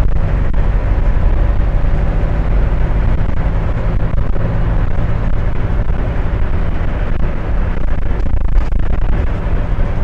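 International DT466 diesel engine of a 2000 Blue Bird school bus running steadily at highway cruise in sixth gear, heard from inside the cab together with steady road and tyre noise.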